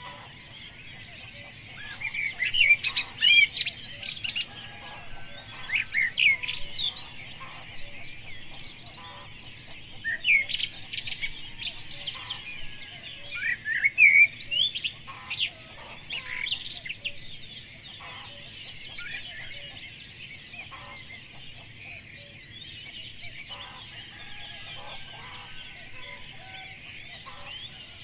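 Birds chirping and calling in quick, sweeping high notes, in loud bursts through the first half, over a steady background chatter of many fainter birds.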